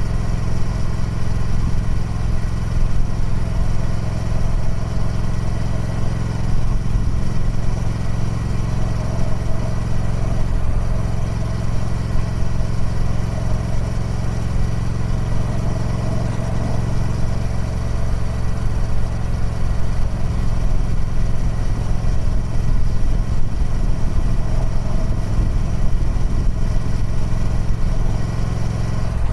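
Triumph Speed Twin 1200's 1200 cc parallel-twin engine running steadily through its stock exhaust, holding an even pitch with no revving.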